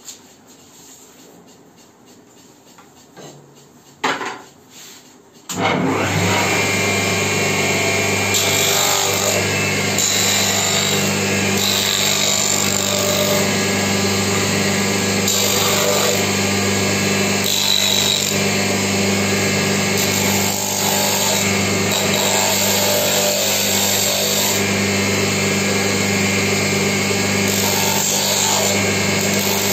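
A couple of knocks, then a grinder starts about five and a half seconds in and runs steadily under load, grinding the rough edges of a straightedge strip true.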